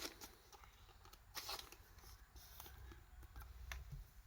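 Faint rustling and light clicks of a trading card being handled and slid into a plastic card sleeve, with one sharper crackle about a second and a half in.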